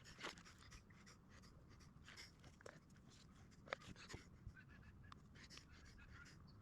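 Near silence, broken by a few faint scattered ticks and light scrapes; one sharper tick comes a little under four seconds in.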